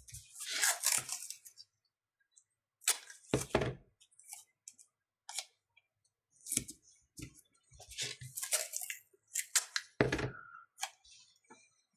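Irregular crackling and rustling handling noises, like adhesive tape being torn and pressed down, with dull knocks about three and a half and ten seconds in.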